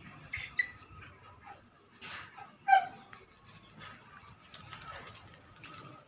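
Short, high-pitched animal yelps: two within the first second and a louder one, dropping in pitch, about two and a half seconds in, over a faint steady high tone.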